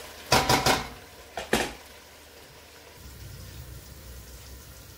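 Kitchenware clattering against a stainless steel pot, a quick cluster of knocks in the first second and two more about a second and a half in, followed by the low steady rumble of a pot boiling on the gas stove.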